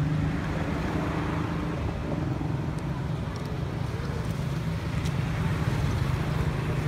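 A motor vehicle's engine idling: a steady low hum that holds an even pitch throughout.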